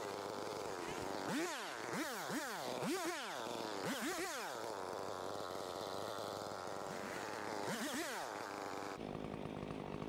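Gas two-stroke chainsaw idling and revved up in short bursts as it cuts through vines and brush stems. There are about six quick revs between one and four and a half seconds in, and two more near eight seconds.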